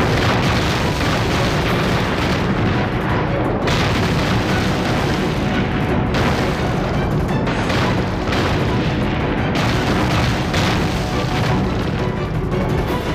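Film battle sound effects: repeated shell explosions, a new blast every second or two, over loud dramatic film music.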